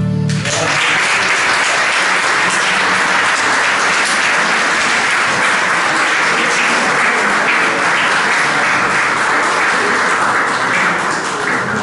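Audience applauding steadily, right after the last note of the folk ensemble's bağlama sazes and flutes cuts off at the very start. The clapping fades near the end.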